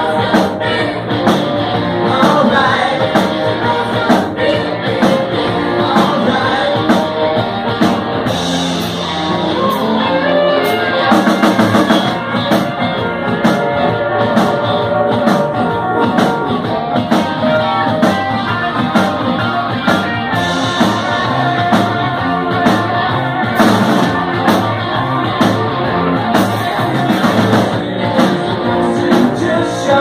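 Live rock band playing: electric guitar, keyboard and drum kit, with a steady drum beat.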